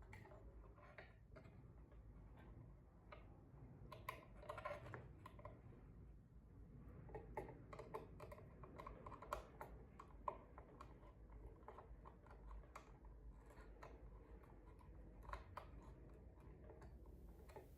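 Faint, irregular clicks and light taps of hands working wires and small tools on switch terminals during wiring, over near silence.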